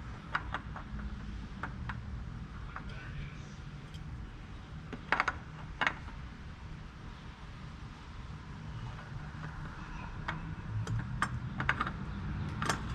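Small clicks and taps of a new spin-on oil filter being handled and fitted against the filter housing, with sharper clicks about five and six seconds in and several more near the end, over a low steady hum.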